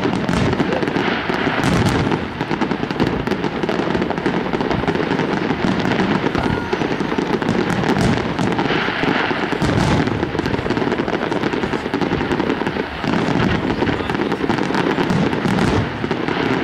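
Fireworks display: a continuous barrage of aerial shells bursting, with many sharp reports overlapping one another and no let-up.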